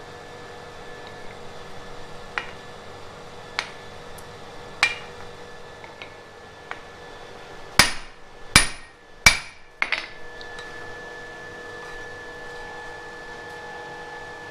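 Blacksmith's hand hammer striking red-hot flat iron at the anvil while a hole is punched (drifted) through the bar: three hard ringing blows in quick succession about eight seconds in, then a lighter tap. Before them come a few light clinks of metal tools, and a faint steady hum runs underneath.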